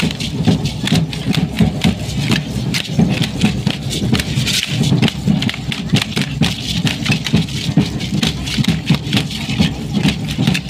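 A matachines-style dance troupe in motion: dense, irregular clicking and rattling from the dancers' wooden bows and the cane fringes of their costumes, over a pulsing low beat of a drum and stamping feet.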